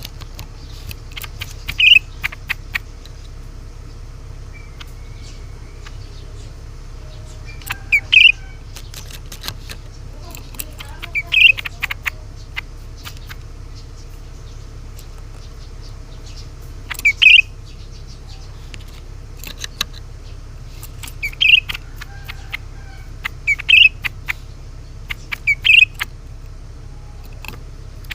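Cucak ranting bird calling in short bursts of a few quick notes, about seven bursts spaced a few seconds apart, over a steady low hum.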